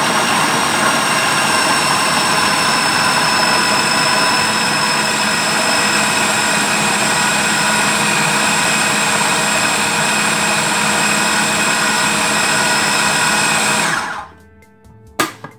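Electric food processor running steadily as its blade chops a bowl of peeled garlic cloves into coarse mince, with a high motor whine over the noise of the chopping. It cuts off about 14 seconds in, and a single sharp click follows a second later.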